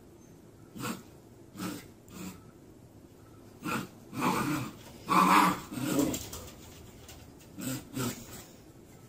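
Husky puppy growling and yipping in short bursts, about ten in all, the loudest a little after five seconds in.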